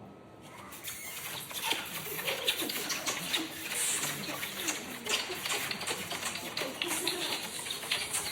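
A continuous run of quick, wet kissing smacks, many close together, fading in over the first second.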